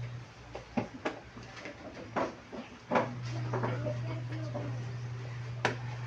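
A handful of sharp knocks and clicks, the loudest about three seconds in, over a steady low hum that drops out for the first few seconds and then comes back.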